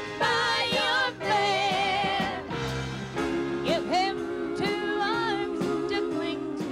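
A woman singing a song live into a microphone, with wide vibrato on held notes, over musical accompaniment.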